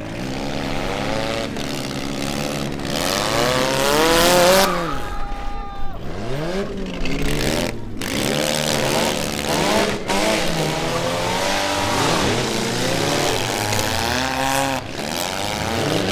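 Several four-cylinder demolition derby cars revving hard, their engine notes climbing and falling over one another, loudest with a rising rev about four seconds in. A few sharp knocks from cars ramming each other.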